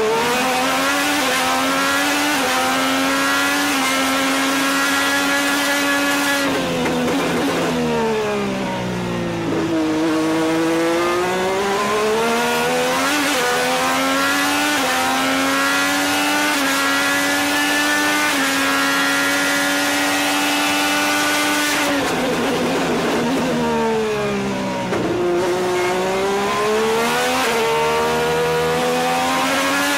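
IndyCar's Honda 2.2-litre twin-turbo V6 at racing speed, heard from the driver's cockpit. The pitch climbs through quick upshifts, drops as the car brakes and downshifts for a corner about seven seconds in and again about twenty-three seconds in, then rises again under acceleration.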